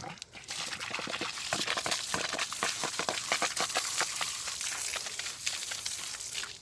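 Water spraying onto freshly caught spotted bass, a steady spattering hiss full of small crackles, which breaks off briefly just after the start.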